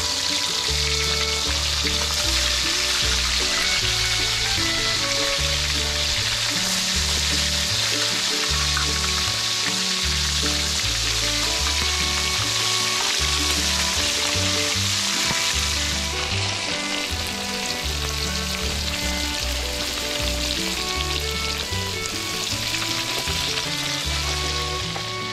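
Fish frying in hot oil, a loud steady sizzle that eases somewhat about sixteen seconds in, over background music.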